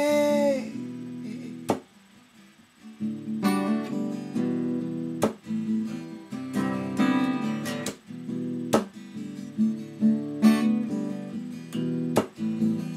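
Acoustic guitar strumming chords in a reggae rhythm, with a sharp percussive chop every three and a half seconds or so. The end of a held sung 'hey' fades at the start, and the guitar drops out briefly about two seconds in.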